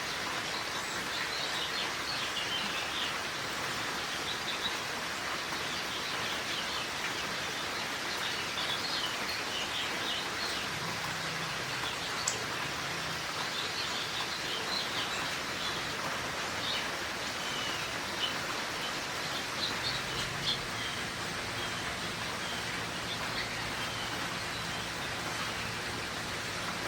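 Steady rain falling, with small birds chirping and twittering on and off. A faint low drone comes in about halfway through.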